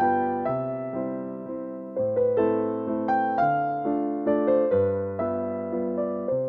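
Gentle piano music: single notes and chords struck every half second or so, each ringing and fading before the next.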